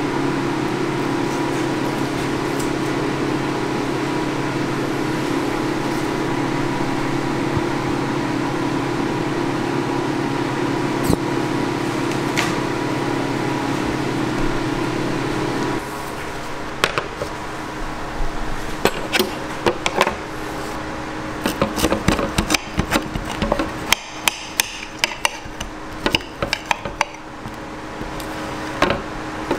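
A steady machine hum that cuts off about halfway through, followed by a knife and fork clinking and scraping against a ceramic plate as a waffle is cut, with many sharp irregular clicks.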